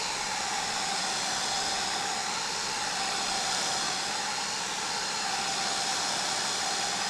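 Hot-air blower running steadily with a faint whine, heating the tablet's digitizer to soften its adhesive.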